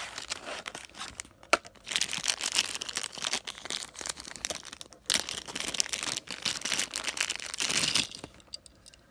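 Crinkling and rustling of a clear plastic bag and a small cardboard box as a die-cast toy car is unpacked from them. There is a sharp click about a second and a half in, and the crinkling is busiest from about two seconds in until near the end.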